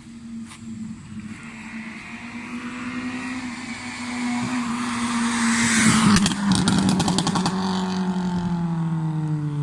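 Proton Waja's engine, on a pop-and-bang ECU remap, running at a steady pitch and growing louder, then a quick run of exhaust pops and crackles about six seconds in as the engine note falls away.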